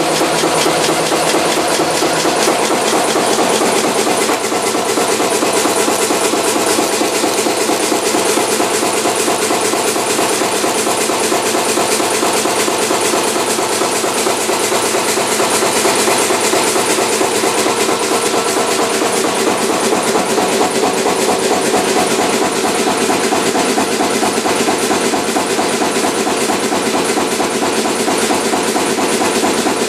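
Kromhout 2H3 marine diesel engine running steadily, a fast, even mechanical beat with a lot of hiss.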